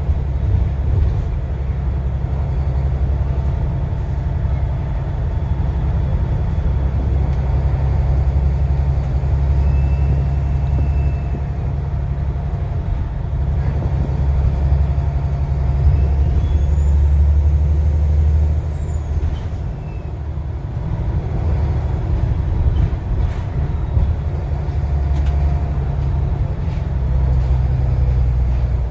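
Volvo B7TL double-decker bus's turbocharged diesel engine running under way, a heavy low rumble that swells and eases. A bit past halfway a high turbo whistle rises and then falls away.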